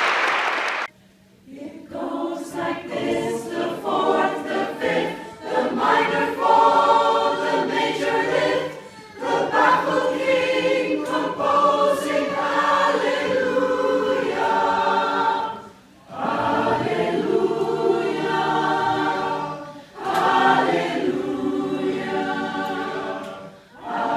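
Applause for about the first second, then a mixed choir of women's and men's voices singing, in long phrases with short breaks between them.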